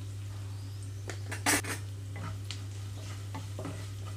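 Wooden spatula stirring and scraping frying onions in a nonstick pan, with scattered light scrapes and one louder scrape about a second and a half in.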